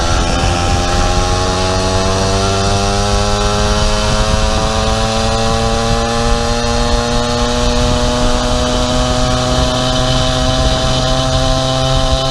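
50cc two-stroke pocket bike engine on a motorized bicycle running under way, its pitch climbing slowly and steadily as it picks up speed.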